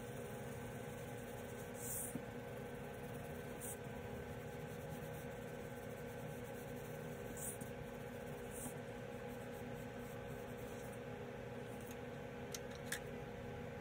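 Colored pencil scratching on paper in a few short bursts of shading, over a steady low hum. Near the end there are a few sharp clicks as wooden pencils knock together when one is set down among the others.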